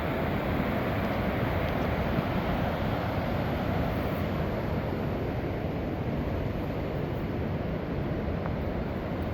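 Steady rushing of the Coal River's Upper Falls, water pouring over the rock ledge.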